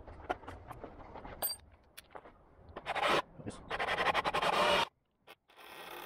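Metal drill bits clinking and rattling in a plastic case as they are sorted by hand, followed by two louder stretches of scraping and rustling. After a short silent gap, background music starts near the end.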